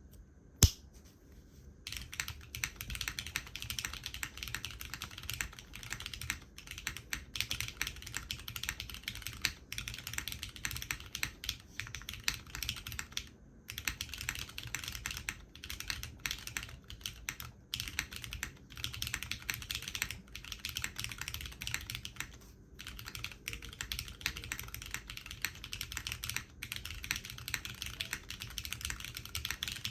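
Typing on a custom mechanical keyboard: a SINGAKBD Kohaku R2 with lubed, filmed Cherry MX Butter Brown tactile switches, an aluminium plate, GMK keycaps and no foam, giving a clacky key sound. One sharp click about half a second in, then fast, steady typing from about two seconds with brief pauses.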